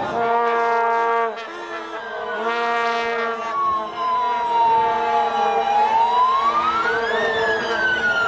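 Vuvuzelas blowing in a marching crowd: several plastic stadium horns hold steady, low droning notes at a few different pitches, in blasts that stop and start. A siren wails through them in one slow fall and rise and starts falling again near the end.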